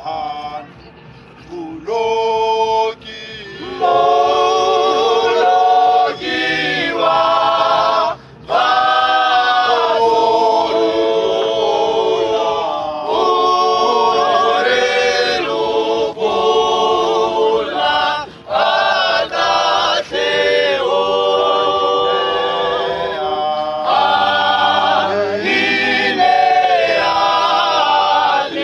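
Male a cappella vocal group singing in harmony, with no instruments. The song comes in phrases with brief pauses between them.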